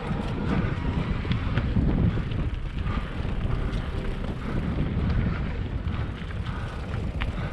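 Wind buffeting the microphone of a rider on the move, a steady fluttering rumble.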